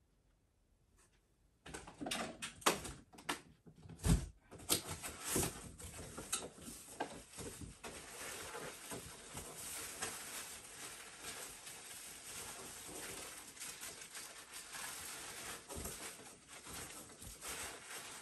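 Someone rummaging through stored things for card sleeves: a run of knocks and clatters starting about two seconds in, then steady rustling with scattered clicks.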